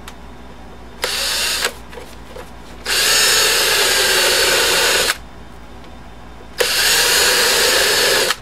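Cordless drill/driver running in three bursts as it works into the drawer's metal bracket and particleboard: a short run about a second in, then two longer runs of about two seconds each, with a few small clicks between.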